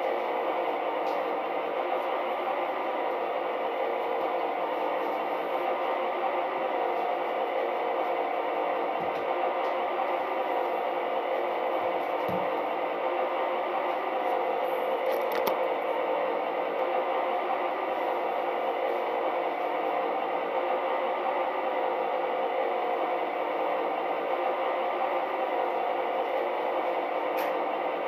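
Sound decoder of a model V60 diesel shunting locomotive playing a steady diesel idle through the locomotive's small loudspeaker, with a couple of faint knocks about twelve seconds in.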